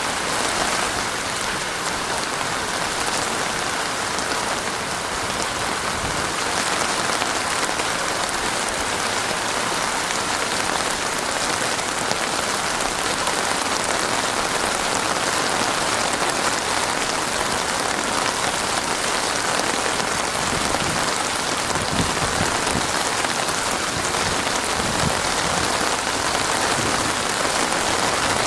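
Heavy rain falling steadily and pattering on surfaces: a dense, even downpour with no thunder.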